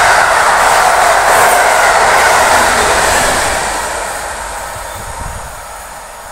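Passenger train's coaches rolling past close by, a loud steady rush of wheels on rail that fades away over the last three seconds as the train draws off down the line.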